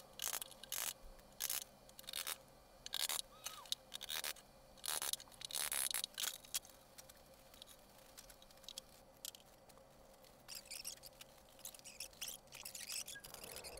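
Faint, irregular clicks, taps and scrapes of hand tools working inside a wooden trunk, busiest in the first half and thinning out after about seven seconds, over a faint steady hum.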